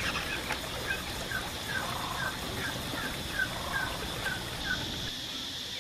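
A bird calling a short falling note over and over, about two to three times a second, stopping shortly before the end.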